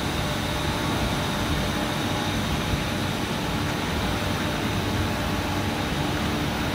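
Steady mechanical hum and hiss of industrial shop machinery or ventilation, with a faint steady whine running through it.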